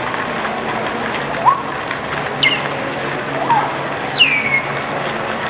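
African grey parrots whistling: four short calls, the first rising about a second and a half in, the others falling, the last a long downward sweep near the end. A steady splashing of a garden fountain runs underneath.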